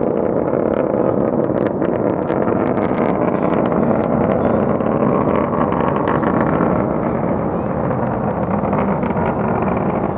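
SpaceX Starship SN9's Raptor rocket engines heard from far off during ascent: a steady, dense low rumble with scattered crackles, the sound arriving long after liftoff.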